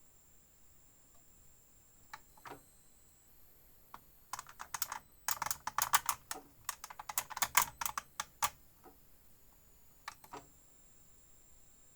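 Control panel of an Indesit IWSB5093 washing machine being operated: a few single clicks, then a fast run of clicks in the middle, then a couple more clicks.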